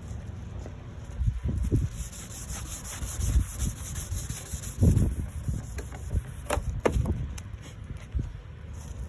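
Wet sandpaper scrubbing back and forth across a plastic headlight lens in uneven strokes, cutting away the oxidised haze.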